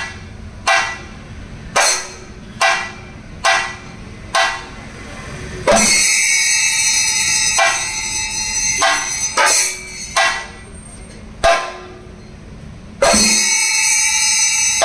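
Thayambaka percussion on chenda drums and ilathalam cymbals. For the first few seconds single strokes ring out about once a second. Then denser playing sets up a sustained metallic ringing, with a fresh loud entry near the end.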